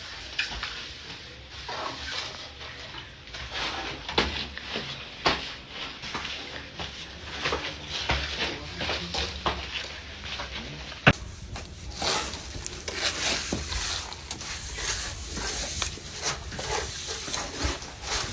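Building work in progress: hand tools scraping and tapping irregularly, as in plastering, with a sharp knock about eleven seconds in.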